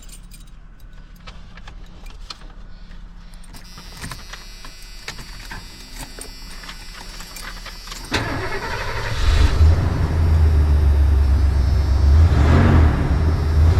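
Small clicks and rattles at first. About eight seconds in, the 1990 Ford Econoline E250 van's engine cranks and catches on its newly installed batteries, then settles into a loud, steady low running rumble.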